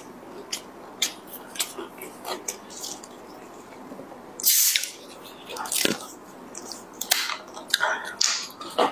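Cap twisted off a plastic cola bottle, letting out a short loud hiss of escaping carbonation about four and a half seconds in. Small sharp mouth clicks and smacks come before it, and sipping clicks as the bottle reaches the lips near the end.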